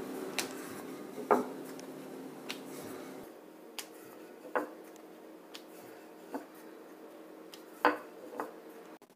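Wooden rolling pin rolling out poori dough on a stone rolling board: light, irregular knocks and taps every second or so, over a faint steady hum.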